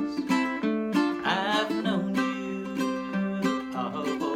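Baritone ukulele in GCEA tuning strummed in a steady rhythm on D minor and C5 chords, with a man's voice singing a short phrase about a second in.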